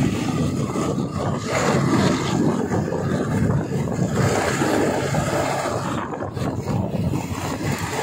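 Passenger train running along the track: a steady, uneven rumble with no clear rhythm.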